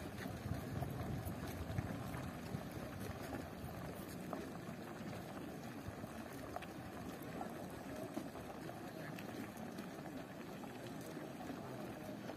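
Footsteps of a large crowd walking on a dirt road, a steady shuffle of many feet with faint scattered ticks.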